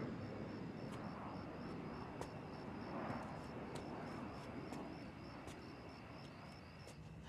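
Faint night-time outdoor ambience: a high, evenly pulsing cricket chirp over a soft, slowly swelling rumble like distant traffic.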